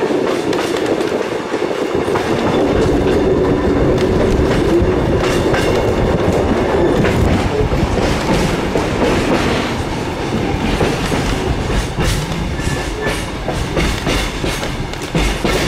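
Kuranda Scenic Railway passenger train running on its narrow-gauge track, heard from a carriage: a steady rumble of the wheels on the rails with frequent irregular clicks.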